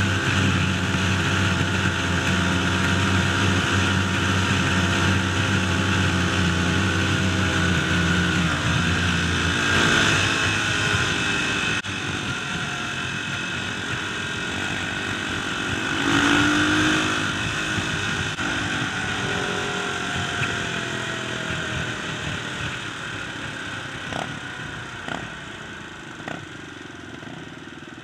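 Dirt bike engine running while riding on a paved road, heard from the handlebars with wind noise. The engine pitch rises and falls around ten and seventeen seconds in, the sound drops suddenly about twelve seconds in, and it grows quieter toward the end.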